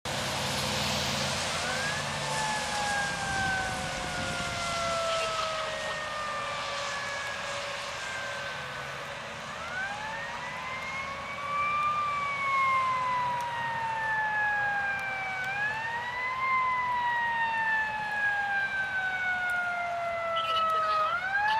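Federal Q2B mechanical siren on a 1996 KME fire engine, wound up four times, each a quick rising wail followed by a long, slowly falling coast-down.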